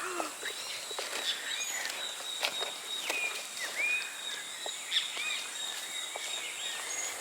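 Birds calling with short, repeated arched chirps over a steady high insect drone, with a few light clicks scattered through.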